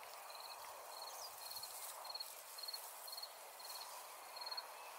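Insect chirping: short, high, trilled chirps repeating about twice a second over a steady background hiss.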